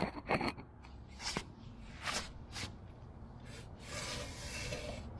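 Handling noise close to the microphone: a few light knocks, then a longer scraping rub about four seconds in, as a mechanical bathroom scale is set under an aircraft wheel on a concrete floor.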